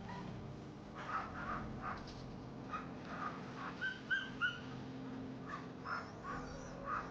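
Sled huskies whining and yipping in short, high calls, a dozen or so scattered through, including a quick run of three whistle-like whines a little before halfway, over a faint steady low hum.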